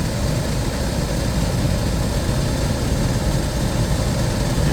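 Dometic rooftop RV air conditioner running with its cover off, compressor and fan giving a steady low hum. The unit is undercharged and is being topped up with R-410A refrigerant.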